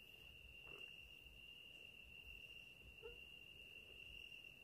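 Near silence with a faint, steady, unbroken high-pitched cricket trill.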